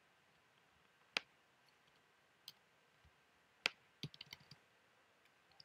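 Computer mouse and keyboard clicks: two sharp single clicks, about a second in and near the middle, then a quick run of lighter key taps.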